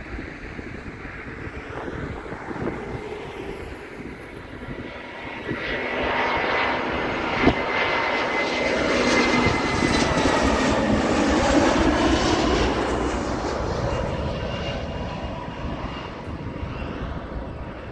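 Jet airliner passing low overhead on landing approach. Engine noise builds about five seconds in, peaks around the middle with a high whine that drops slightly in pitch, then fades away.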